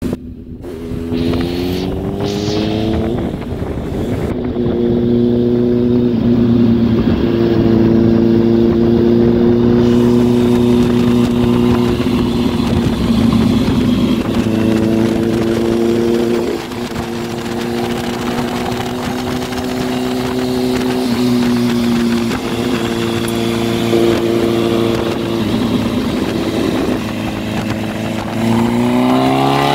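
Kawasaki Ninja H2's supercharged inline-four, fitted with a Vandemon titanium exhaust, running loud at low, steady revs as the bike rolls along. Its pitch steps up and down a little a few times, and the revs climb near the end.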